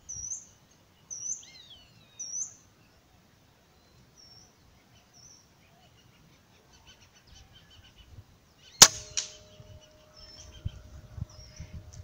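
Small birds chirping, short high calls about once a second at first, then a single sharp scoped-rifle shot about nine seconds in, the loudest sound. A faint steady tone hangs on after the shot.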